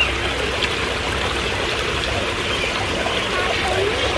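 Small waterfall in a garden pond: water spilling over rocks and splashing steadily into the pool.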